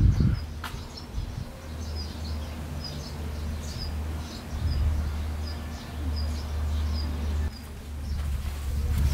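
Small birds chirping in short, high calls, repeating about once a second, over a steady low rumble.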